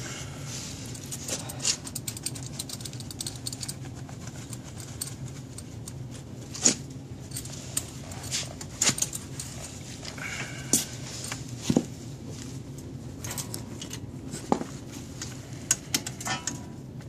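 Scattered metal clicks and clinks as parts and fasteners are handled and fitted at a car's front wheel hub and steering knuckle, with a few sharper knocks about seven and eleven seconds in, over a steady low hum.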